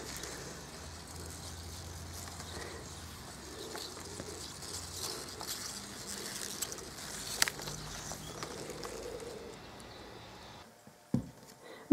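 Quiet outdoor ambience with a bird's faint low cooing calls, heard twice, and a single sharp click about seven and a half seconds in.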